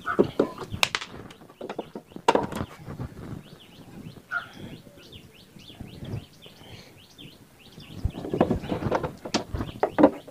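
Sped-up sound of screws being taken out of a CRT television's plastic back cover with a screwdriver: a few sharp knocks and clatter, with quick high chirping sweeps in the middle and a denser burst of clatter near the end.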